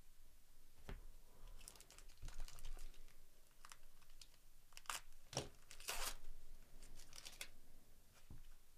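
Foil wrapper of a 2024 Topps Series 1 baseball card pack being torn open and crinkled, with scattered light clicks and rustles of the cards being handled. The loudest crinkling comes about two-thirds of the way through.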